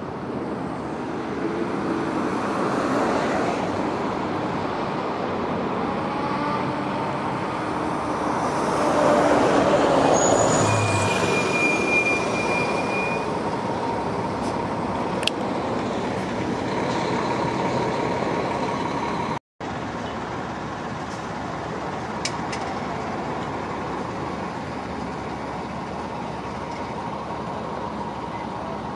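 Transit buses and traffic going by: steady engine and road noise that swells to its loudest about a third of the way in as a bus passes, with a brief high squeal just after.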